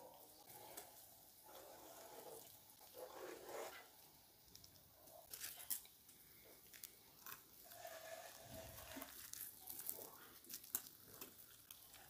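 Faint crinkling of nitrile gloves with soft scattered clicks and rustles as burger toppings and the top bun are set in place.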